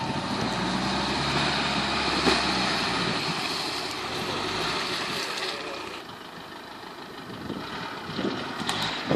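Engine of a first-generation Land Rover Discovery working hard as it pulls out of a muddy water hole and drives off across grass. The engine note is strong for the first three seconds or so, eases off and quietens a couple of seconds past the middle, then picks up again near the end.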